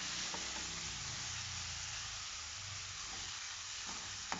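Marinated chicken pieces sizzling steadily in hot oil in a metal karahi on high heat, while a metal spoon stirs them, with a few faint scrapes and taps of the spoon on the pan, the sharpest near the end.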